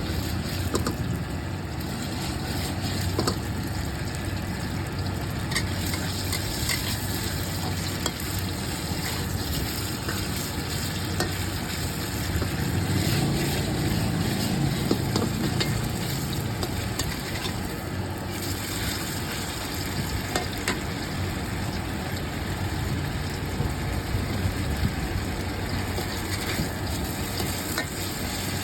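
Food frying at a street-food stall: a steady sizzling hiss with scattered short clicks and clinks, over a low steady hum.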